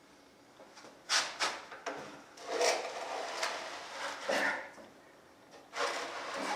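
Heavy machine part being dragged and shoved, scraping in short pushes: a few sharp knocks about a second in, a longer scrape through the middle and another starting near the end.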